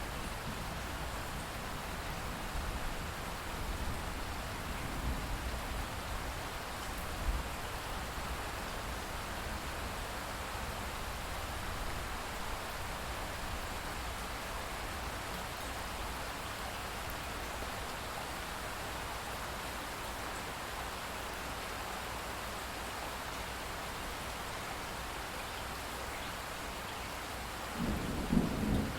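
Steady rain falling, with low rumbles of thunder in the first few seconds; a louder roll of thunder begins near the end.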